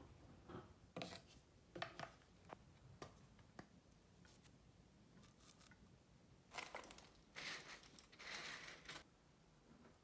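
Faint handling sounds of a toothbrush and toothpaste: a few light clicks and knocks as a toothbrush is lifted from its plastic holder cup, then a couple of seconds of soft rubbing and rustling noise near the end as toothpaste is squeezed onto the brush.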